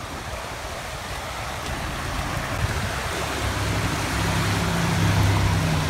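Floodwater rushing through a concrete drainage channel, a steady hiss that grows slowly louder. From about halfway in, a low steady engine hum from a motor vehicle on the road joins it and builds.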